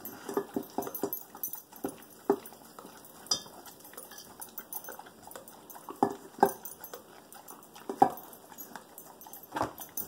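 Dog eating kibble from a slow-feeder bowl: irregular crunches, licks and small clicks as the bowl shifts on the floor, with a few louder knocks.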